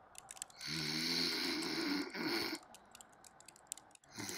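Snoring from a man lying on the couch: one long snore of about two seconds, then a second one starting near the end. Light laptop keyboard clicks come in the gap between them.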